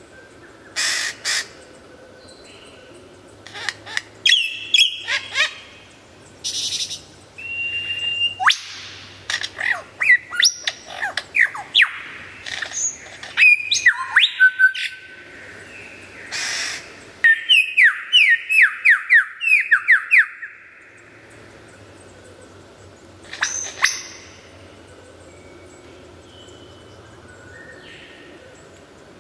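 Lyrebird singing a varied run of loud whistles, chirps and sharp sweeping notes, including a rapid series of about eight falling whistles. The bird then goes quiet for several seconds apart from one short call.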